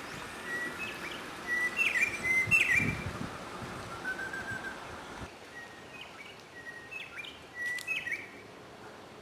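White-browed robin-chat singing: two phrases of repeated clear whistles, each note ending in a sharp upward flick, growing louder through each phrase. A short, quieter trill comes between the two phrases.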